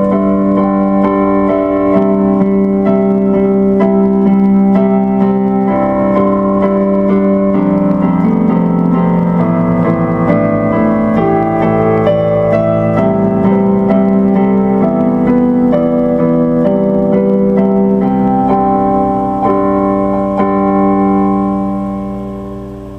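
Instrumental keyboard music, electric-piano-like, with sustained notes; it fades out over the last couple of seconds.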